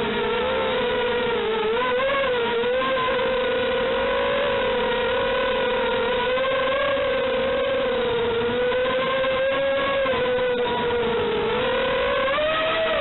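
FPV quadcopter's electric motors and propellers whining steadily, the pitch wavering up and down a little as the throttle changes.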